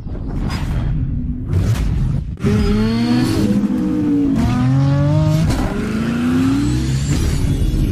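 An engine revving up and down several times, its pitch rising and falling in repeated sweeps over a low rumble, after a few sharp hits in the first couple of seconds.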